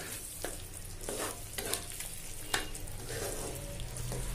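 Wooden spatula stirring chicken pieces in thick spinach paste in a non-stick pan, the food sizzling softly, with several short scrapes and taps of the spatula against the pan.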